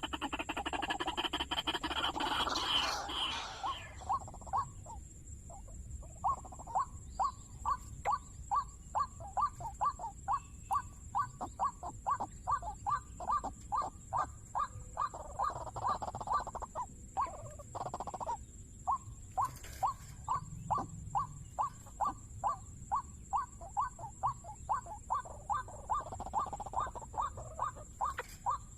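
Waterhen calling: a harsh, rapid run of calls at first, then a long series of short, evenly repeated notes at about two a second, with one brief pause midway. This is the call used to lure waterhens to the trap.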